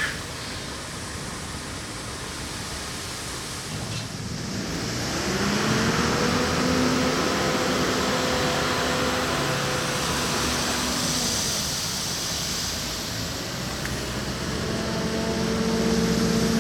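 Diesel engines of large harvest machinery running: a steady rushing noise, then from about five seconds in an engine note that rises in pitch, holds, and drops away, twice.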